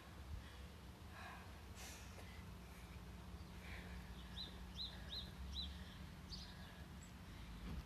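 Faint heavy breathing of a person recovering after a hard round of rowing and burpees, over a steady low hum. About halfway through, four quick high bird chirps.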